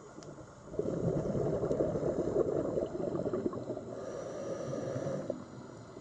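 Scuba diver's exhaled breath bubbling out of the regulator underwater: a gurgling rush that starts about a second in and dies away after about four and a half seconds.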